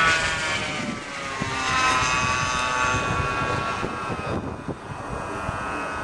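Glow engine of a fast homemade RC airplane, an O.S. Max .120, running at speed in flight. Its pitch drops as the plane passes, rises again about two seconds in, and the engine sounds duller and fainter from about four seconds in as the plane flies off.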